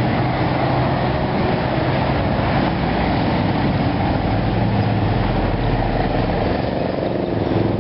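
Steady motor-vehicle engine noise with a low hum.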